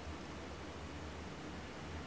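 Room tone: a steady low hum with a faint even hiss, and no distinct knocks or clicks.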